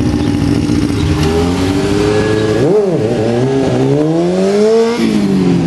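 Motorcycle engine revving hard, its pitch climbing over several seconds with a sharp dip and recovery about halfway, then falling off about five seconds in.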